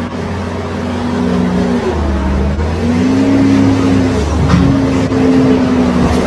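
A heavy vehicle's engine running, its pitch rising and falling every second or so as the revs change.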